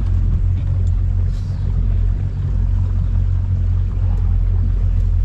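Engine of a 1995 Four Winns Horizon bowrider running steadily, heard from aboard as a low, even drone.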